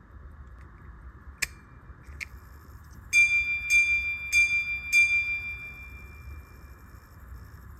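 Henry Sandoz minute repeater pocket watch striking its gong four times, evenly about 0.6 s apart, each strike on the same bright ringing note that fades slowly. Two sharp clicks come before the strikes.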